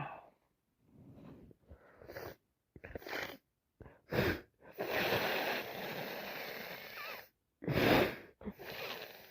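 A woman with a heavy head cold sneezing wetly and sniffling: a string of short, sudden bursts, the loudest about four and eight seconds in, with a longer steady breathy rush of about two and a half seconds between them.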